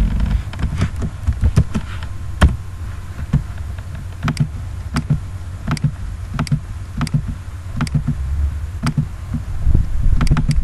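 Irregular sharp clicks of a computer mouse and keyboard, about one or two a second, over a steady low rumble.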